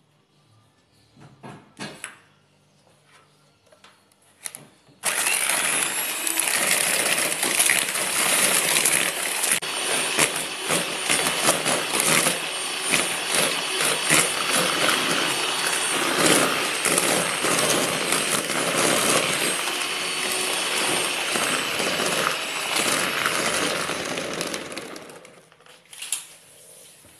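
Electric hand mixer switched on about five seconds in, its twin wire beaters whisking egg yolks and sugar in a plastic bowl with a steady rattling whirr. It is switched off near the end.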